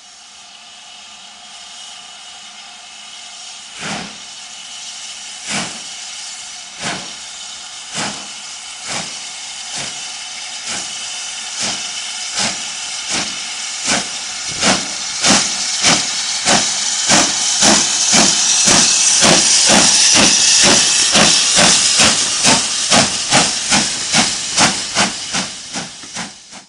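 SR Battle of Britain class 4-6-2 no. 34067 Tangmere, a three-cylinder Bulleid steam locomotive, working a train past with a steady hiss of steam. Its exhaust chuffs come in about four seconds in, roughly one every second and a half, and quicken to about three a second as it picks up speed, loudest as it passes.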